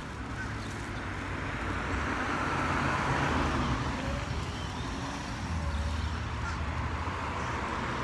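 Street traffic: a vehicle's tyre and engine noise swells and passes about two to four seconds in, over a steady low engine rumble.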